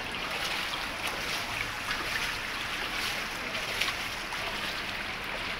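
Floodwater sloshing and lapping, a steady wash of water noise with small splashes.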